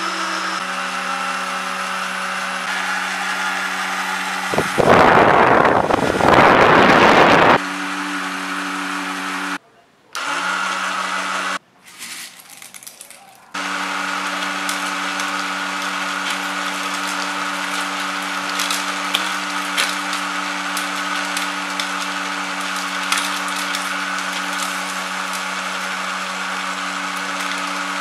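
Small DC motor of a homemade sunflower-seed sheller running with a steady hum, with light ticks and rattles as seeds are hulled and shells are thrown out. About five seconds in, two loud bursts of noise drown out the hum, and the sound cuts out briefly twice.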